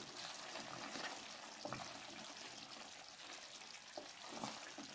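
Faint sizzling and bubbling of a thick coconut-milk chicken curry cooking in a kadhai, with freshly added ghee, and a few faint ticks about two and four seconds in.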